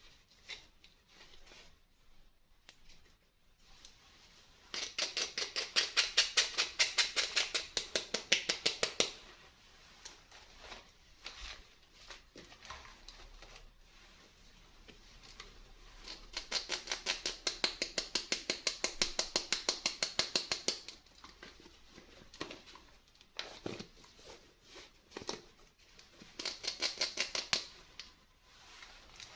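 Toy packaging being handled and opened by hand: three runs of rapid, evenly spaced clicking scratches, about four seconds, five seconds and two seconds long, with quieter rustling and tapping between them.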